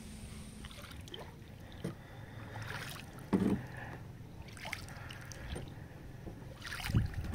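Kayak paddle strokes: the blades dip and splash in the river water several times, dripping between strokes, with one louder knock about three and a half seconds in.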